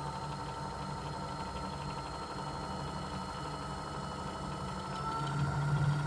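Variable-speed lathe running at about 650 RPM, the motor and spinning chuck giving a steady hum that gets a little louder about five seconds in. It has a shaking that the owner traces to loose chuck jaws.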